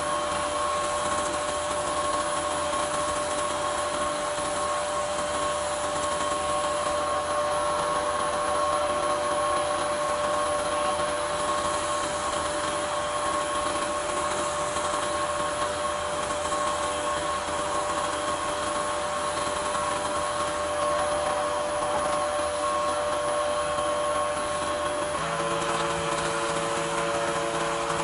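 Wood lathe motor running steadily with a hum and whine while a wet micro-mesh sanding pad is rubbed along the spinning pen blank. About 25 seconds in, the motor's hum shifts to a lower set of pitches.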